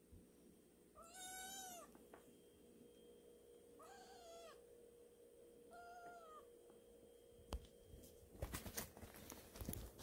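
White kitten meowing three times, each short call rising and falling in pitch, a few seconds apart. Near the end, a burst of knocks and rustling.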